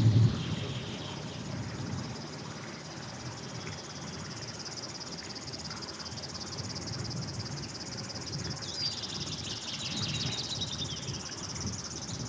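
Insects trilling steadily in a high, fast-pulsing buzz, with a few short bird chirps about two-thirds of the way through.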